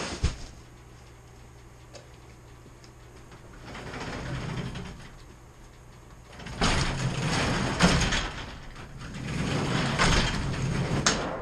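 Sectional garage door rolling up along its lowered, modified track. It runs in uneven swells, loudest in the middle, with a click near the start and another near the end. It rolls up less smoothly than a door on a regular curved track.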